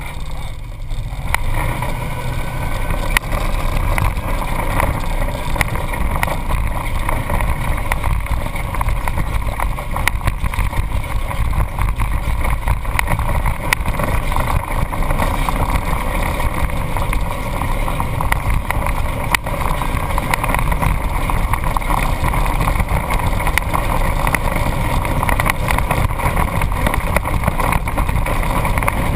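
Off-road vehicle driving along a sandy dirt trail: its engine and drivetrain run steadily under a rush of wind and road noise. Scattered sharp knocks come from bumps in the trail.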